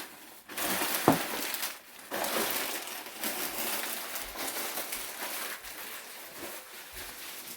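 Paper and packaging rustling and crinkling as presents are unwrapped and handled, in uneven rustles that slowly fade toward the end.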